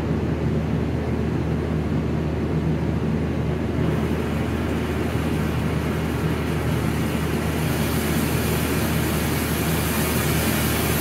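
Oxy-acetylene torch flame burning with a steady rumble and hiss as oxygen is turned in, changing it from a sooty acetylene flame to a blue flame; the hiss grows brighter about four seconds in and again around eight seconds.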